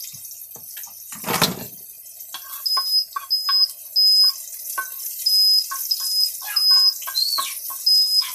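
Smoke detector going off with high-pitched beeps in groups of three, set off by smoke from frying, starting a couple of seconds in. Under it, hot oil sizzles in a cast-iron skillet, and there is a single thump about a second and a half in.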